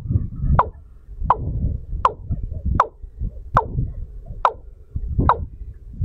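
A sharp tick or knock repeating seven times at an even pace, about one every three-quarters of a second, each dropping quickly in pitch, over a low rumble.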